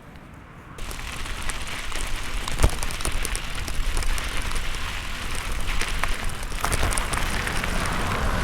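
Wind buffeting the microphone of a handheld camera on a moving bicycle, starting abruptly about a second in as the ride gets under way, with scattered clicks and knocks.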